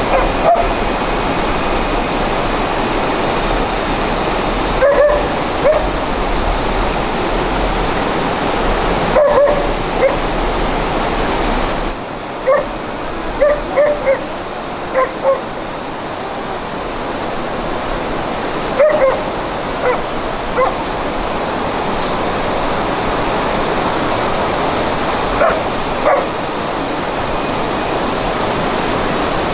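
Steady rush of stream water, with a dog giving short, high whimpering yips every few seconds, some in quick clusters of two or three.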